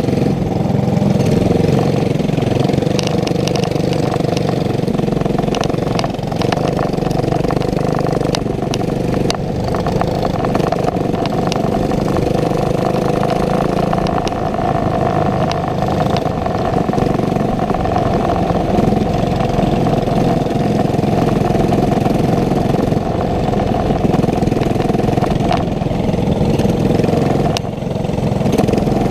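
Racing kart engine running steadily, with scattered light clicks over it.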